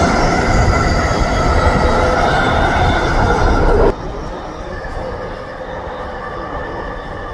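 SkyTrain car running on the Evergreen Line, with rail and wheel noise and a steady whine of several held tones. The sound drops sharply about four seconds in and carries on at a lower level.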